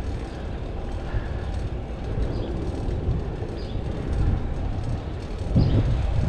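Steady low rumble of street or vehicle noise, with a brief louder swell near the end.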